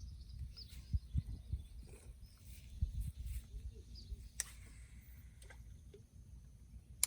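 Faint bird chirps outdoors over a steady low rumble, with a few soft thumps about one to three seconds in.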